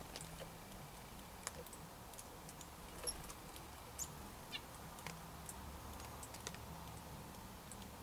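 Faint outdoor ambience at a backyard bird feeder: scattered light ticks and clicks, with a few brief high chirps from small songbirds, including a quick run of short notes about halfway through.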